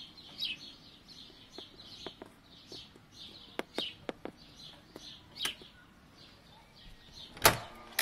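Code being typed on an Arduino door lock's membrane keypad: a string of about nine small, uneven clicks from the key presses, with birds chirping steadily behind. About 7.5 seconds in, one short loud burst as the lock releases and the door is opened.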